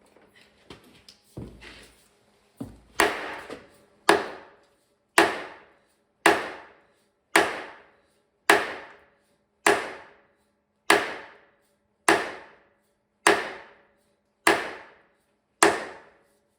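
Hammer blows on a ringing metal part: about a dozen sharp, evenly spaced strikes, roughly one a second, each leaving a short metallic ring, after a few seconds of light clattering.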